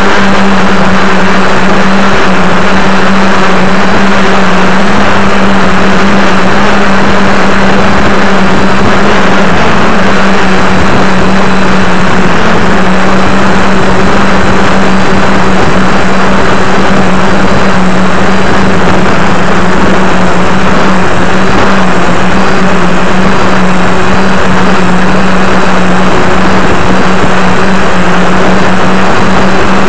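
DJI F450 quadcopter's motors and propellers running at a steady, unchanging pitch, very loud and close with a dense rushing noise, as heard from the GoPro Hero 2 mounted on the airframe during a hover-held climb.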